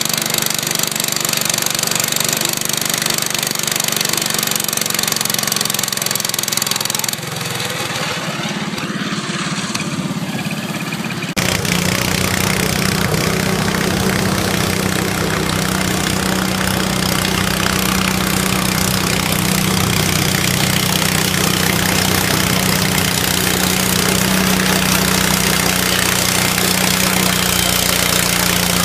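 Garden tractor engine running under load while pulling a weight-transfer sled. The sound drops and changes abruptly about seven seconds in and again about eleven seconds in, then holds a strong, steady engine note.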